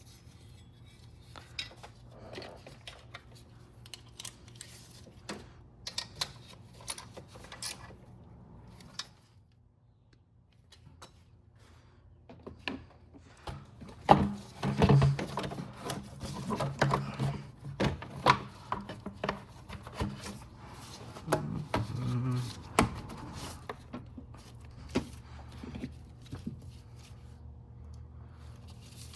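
Hand tools and engine parts clicking, clinking and knocking during work under a car's hood, as scattered sharp clicks with a quiet stretch about a third of the way in and a busier run of knocks in the second half.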